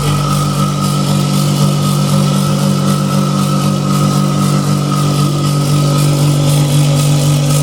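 Viessmann Vitocal 200 heat pump compressor running with a loud, steady hum and a steady high whine above it. It is noisy and vibrating strongly, the sign of a bad compressor.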